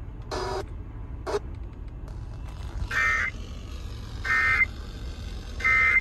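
Emergency Alert System end-of-message code: three short, buzzy data bursts about a second and a half apart, played through a car radio's speakers, signalling that the alert broadcast is over. Two brief noises come first.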